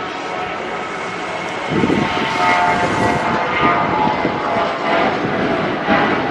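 Lion Air Boeing 737's jet engines at takeoff thrust as it lifts off and climbs away: a steady rushing noise laced with whining tones, growing louder a little under two seconds in.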